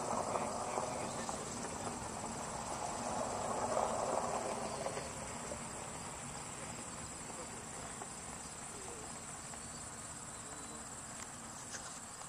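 Insects trilling steadily in one high, even band. A muffled noise swells and fades over the first few seconds.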